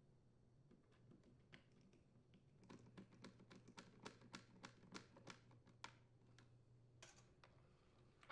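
Faint, quick clicks and ticks of a screwdriver and screws against the plastic recoil starter housing as its mounting screws are driven back in. The clicks come in a run of about three or four a second through the middle, sparser before and after.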